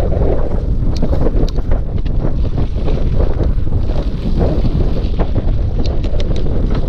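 Heavy wind buffeting on the microphone of a mountain bike rider's camera at speed, a steady low rumble. Scattered sharp clicks and rattles from the bike on the trail, several about a second in and a cluster near the end.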